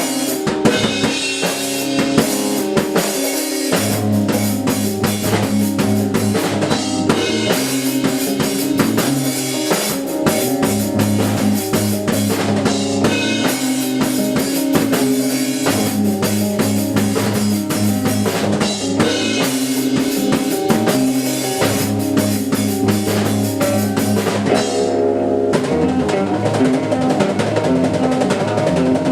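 Rock band playing live, with a busy drum kit driving over bass and guitar in an instrumental math rock passage. About 25 seconds in the drums drop out briefly while the guitar carries on.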